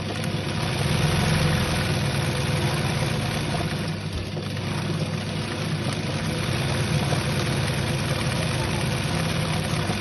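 Sewing machine running steadily at speed, stitching free-motion embroidery: a constant motor hum under rapid needle strokes, easing briefly about four seconds in.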